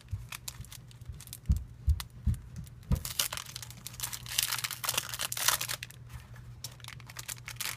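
A clear plastic cellophane bag crinkling and rustling as it is handled, with four soft low thumps between about one and a half and three seconds in.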